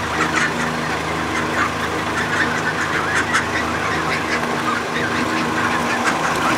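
Young Canada geese and mallard ducks calling as a flock: many short, overlapping calls and honks, over a steady low hum.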